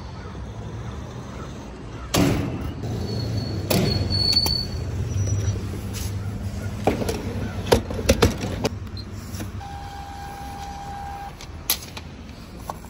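Gas pump being handled: a low hum with several sharp clunks of the nozzle and pump hardware, then one long electronic beep from the pump about ten seconds in.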